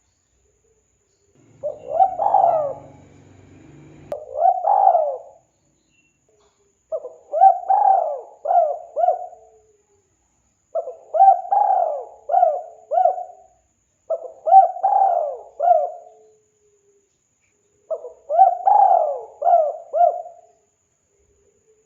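Spotted dove cooing in six phrases of several quick coos each, with a pause of one to two seconds between phrases.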